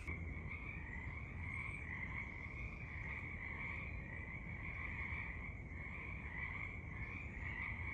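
A chorus of Pacific chorus frogs, many calling at once in a steady, unbroken chorus.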